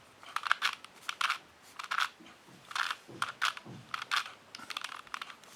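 2x2 Rubik's Cube being turned by hand: an irregular run of short plastic clicks and clacks as the layers rotate.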